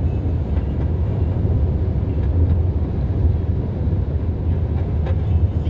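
Steady low road and wind rumble inside the cabin of a moving car.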